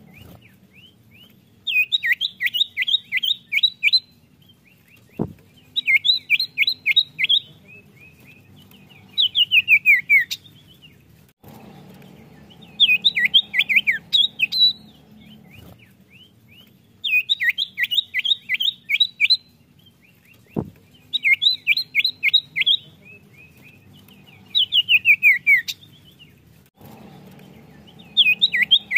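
Common iora (cipoh) singing: bursts of rapid, high, sharp notes, each a second or two long with short pauses between, some ending in a few falling notes. The same sequence of phrases repeats about every 15 seconds, a looped lure recording, with a single sharp click twice.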